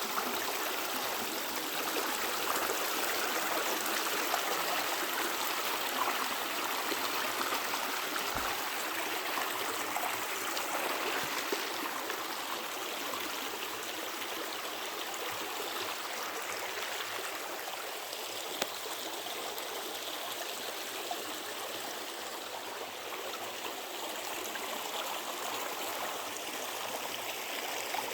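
Shallow creek flowing and burbling over rocks, a steady rush of running water, with a faint knock or two.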